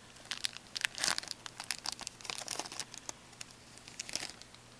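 A 2012-13 Upper Deck Artifacts hockey card pack's foil wrapper being torn open and crinkled by hand, in irregular crackles and rustles that die down near the end.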